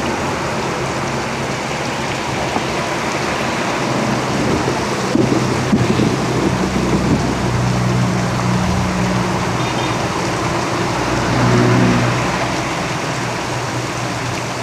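Steady heavy rain drumming on a roof, with a motor vehicle passing on the road: its low engine hum comes in about four seconds in, is loudest near the end, then fades.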